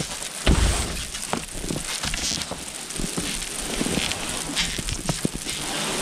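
Long-handled brush scraping wet snow off greenhouse roof panels, with freezing rain falling as a steady crackling patter full of small ticks. A low thump comes about half a second in.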